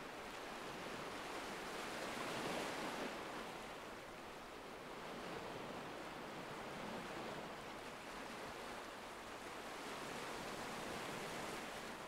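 Recorded ocean surf: a faint, steady wash of waves that swells and eases every few seconds.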